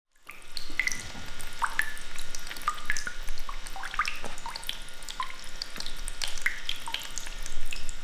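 Pet drinking fountain running, its small water jets splashing back into the bowl: a steady trickle with many irregular droplet plinks, several a second.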